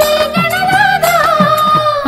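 Indian devotional song music to Ganesha in a gap between sung lines: an ornamented, wavering melody over hand-drum strokes that fall in pitch, about one a second.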